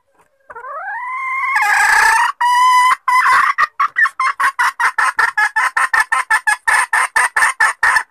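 Junglefowl hen calling: a rising drawn-out note, a harsh squawk, then a fast run of short clucks, about five a second, that stops abruptly. It is presented as the hen's call asking to mate, used as a lure call.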